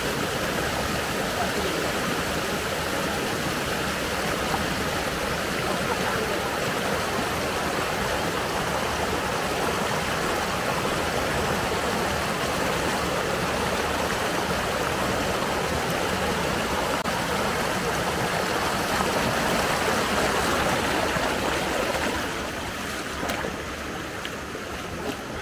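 Steady rush of flowing river water, turning quieter near the end.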